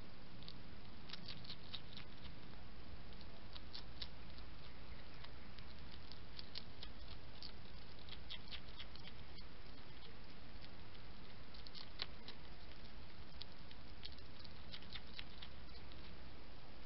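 European hedgehog eating: irregular clusters of small, sharp crunching clicks as it chews, over a steady hiss.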